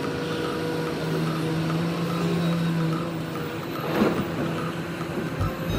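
Caterpillar 374D hydraulic excavator's diesel engine running steadily under load while it digs and loads rock. A brief clatter comes about four seconds in as the bucket dumps rock into a dump truck.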